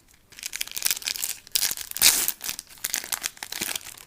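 A baseball card pack's wrapper being torn open and crinkled by hand: a dense run of crackling and tearing that starts about a third of a second in and goes on almost to the end.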